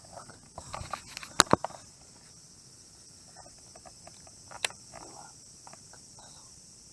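A few sharp clicks or knocks, two close together about a second and a half in and another near five seconds, over a steady high-pitched hiss.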